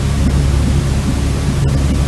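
Steady white-noise hiss for baby sleep, with a deep, heavy rumble underneath.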